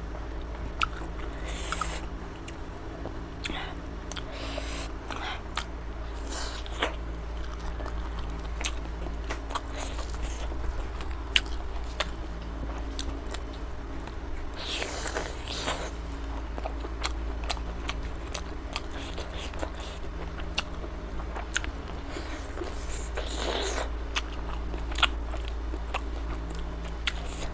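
Close-miked eating: a person chewing and biting into a gravy-soaked chicken leg piece with rice. Many small sharp mouth clicks and a few louder wet bites sit over a steady low hum.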